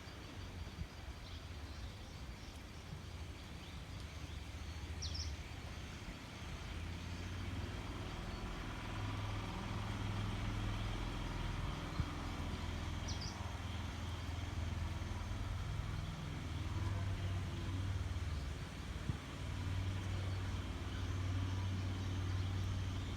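Low, steady engine hum of a motor vehicle that grows gradually louder. Two short, high bird chirps come through it, one about five seconds in and one about thirteen seconds in.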